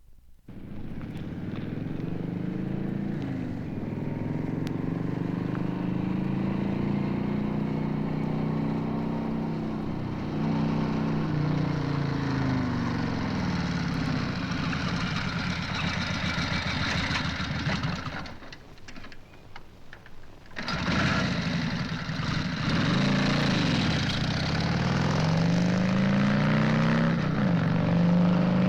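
Motorcycle engine running and revving up and down. It falls much quieter for about two seconds around two-thirds of the way through, then comes back up and revs again.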